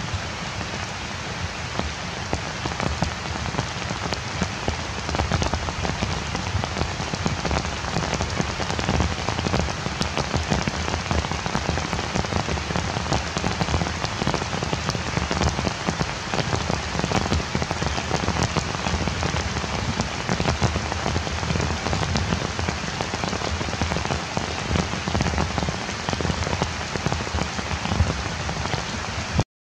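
Heavy rain falling steadily on leaves and the forest floor, a dense patter of drops. It cuts out for a moment just before the end.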